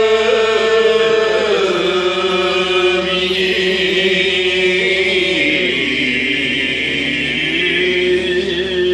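Kiyari-uta, the traditional Japanese work chant of the tezutsu fireworks crews, sung in long held, wavering notes. The pitch sinks about halfway through and rises again near the end.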